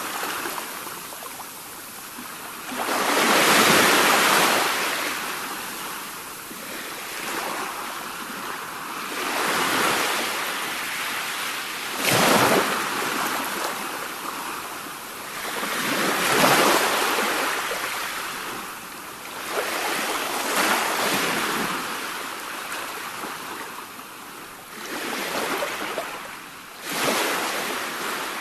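Sea waves breaking and washing ashore one after another, each a surge of rushing noise that swells and falls away, about every three to four seconds.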